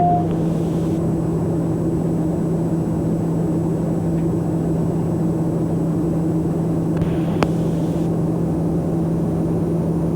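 Steady drone of the Socata TBM 910's Pratt & Whitney PT6A turboprop engine and propeller with airflow, heard inside the cockpit in flight, holding an even low hum. A single brief click about seven seconds in.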